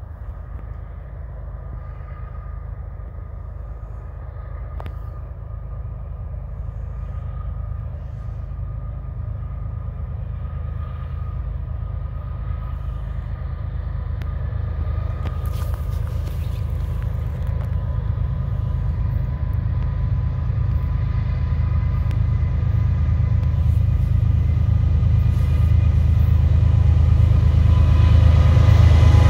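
Diesel locomotives of an approaching freight train, led by a CN ES44AC with an SD70M-2 behind it. Their low engine rumble grows steadily louder as the train draws near, with a thin steady whine above it.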